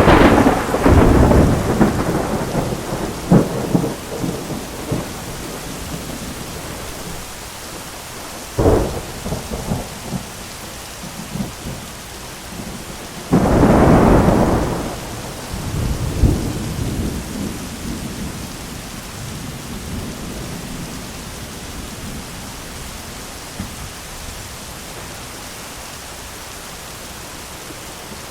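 Thunderstorm: steady heavy rain with rolling thunder. A long peal rumbles at the start, a sharp crack comes about nine seconds in, and another loud clap about halfway through trails off into rumbling.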